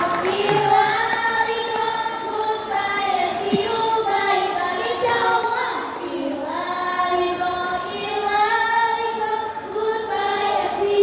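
A choir of girls singing together, holding long notes that glide gently from one pitch to the next.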